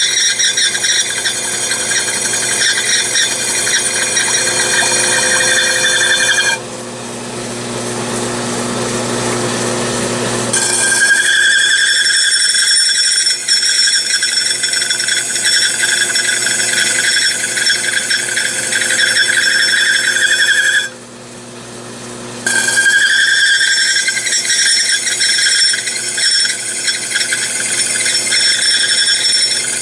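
Stone wheel on a glass-engraving lathe grinding a cut into a glass vessel sink, giving a steady high-pitched whine while the glass is pressed to the wheel. The whine breaks off twice, for about four seconds near the seven-second mark and for a second and a half about two-thirds through, leaving the quieter sound of the wheel spinning.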